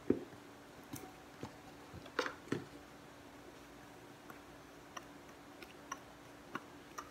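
A metal utensil tapping and scraping against a small ceramic bowl as dry cornstarch, flour and chilli powder are stirred together, in scattered light clicks with a firmer knock at the start. A faint steady hum runs underneath.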